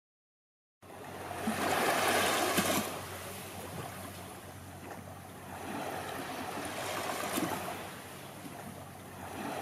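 Sea waves washing in, swelling to a peak about two seconds in and again around seven seconds in.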